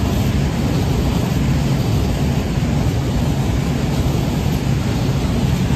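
Freight train container wagons rolling past close by: a steady low rumble of steel wheels on the rails.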